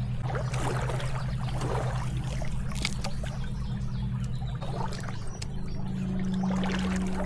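Shallow stream water trickling and splashing in uneven gushes, over a steady low hum.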